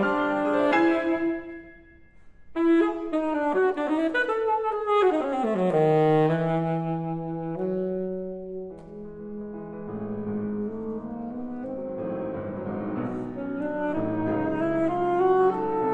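Alto saxophone and Yamaha grand piano playing a classical sonata movement. The music drops almost to silence for a moment about two seconds in, then comes back loudly with a run that falls in pitch, followed by sustained lines over the piano.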